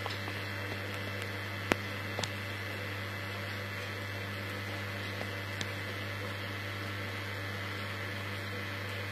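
Steady low electrical hum with an even hiss, and a few faint clicks, the sharpest about two seconds in.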